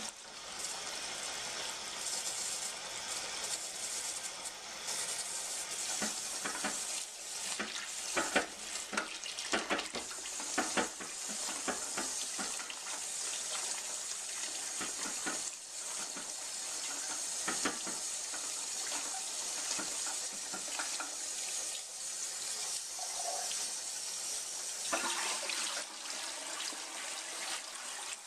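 Kitchen faucet running onto broccoli florets in a metal colander in the sink, with hands stirring and rinsing the florets, adding scattered clicks and splashes. Near the end the sound changes as the colander is lifted out to drain.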